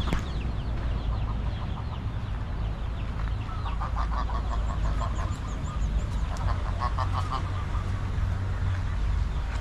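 Birds honking in two bouts of quick, rapidly repeated calls, about four and about seven seconds in, with a few high chirps, over a steady low rumble.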